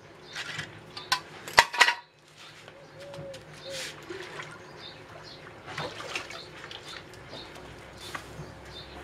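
Metal hand tools clanking as they are set down on paving, the loudest knocks about a second and a half in, followed by scattered splashes and drips of water as a small wooden barrel is handled in a basin of water.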